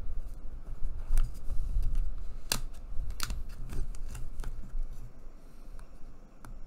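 Pointed craft tool and small cardboard panel being handled on a cutting mat as the backing liner is picked off tape: irregular light clicks and scratches, the sharpest about two and a half seconds in, over dull bumps of hands on the mat.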